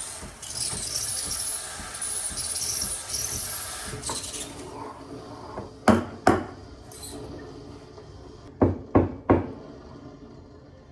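A hiss lasting a few seconds, then sharp knocks of hard objects: two about six seconds in and three in quick succession near the end.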